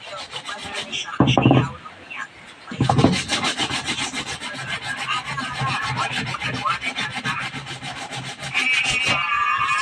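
A hand tool scraping a workpiece in quick, even rasping strokes, many to the second, during repair work on spearfishing gear. A short, heavy knock comes about a second in, and a thin, steady squeal near the end.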